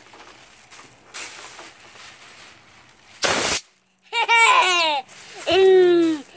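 A short hiss from an air compressor's blow gun about three seconds in, followed by a young child laughing and squealing twice, with falling pitch.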